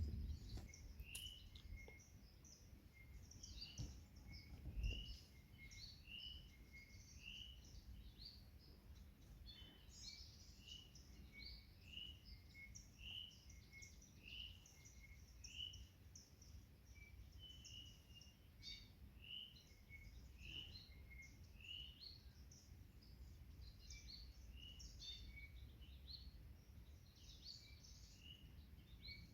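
Small birds singing in a forest, many short repeated chirps and twitters throughout, over a faint low rumble. A single soft thump comes about five seconds in.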